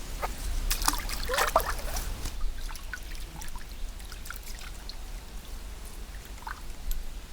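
Water trickling and dribbling at the river's edge, with a cluster of sharp clicks and knocks in the first two seconds.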